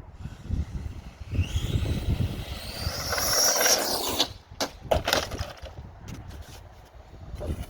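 Brushless electric motor of a 1/10 RC crawler truck winding up in a rising whine under full acceleration, cutting off suddenly about four seconds in. A run of sharp cracks and clatters follows.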